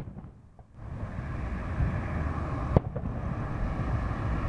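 Fireworks shells bursting overhead: a sharp bang at the start, after which the sound dips for a moment, then a second sharp bang just under three seconds in, over a steady low rumble.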